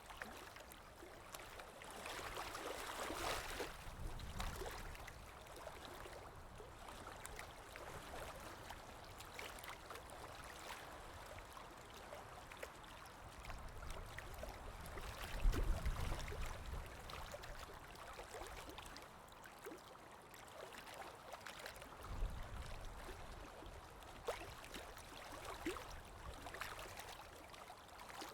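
Water flowing and trickling, with many small drips and splashes. There is a brief low rumble about halfway through and another a few seconds later.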